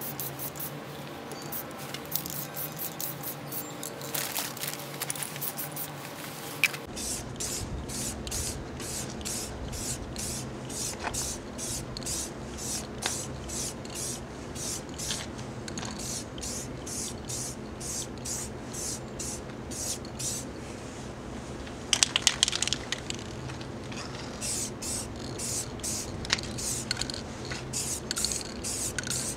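Aerosol spray-paint can hissing in many short bursts as the paint goes on, with a few sharper, louder noises about two-thirds of the way through.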